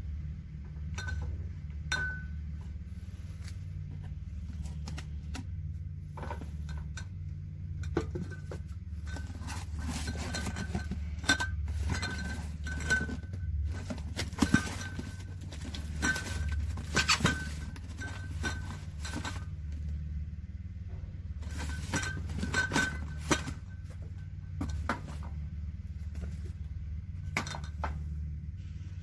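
Metal aerosol cans being handled on a shelf: irregular clinks and knocks, coming thickest in a cluster around the middle and again a little past two-thirds through, over a steady low hum.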